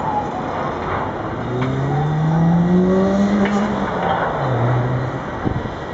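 Road traffic noise, with one motor vehicle's engine accelerating. Its pitch rises over about two seconds, then drops lower for a moment as it pulls away.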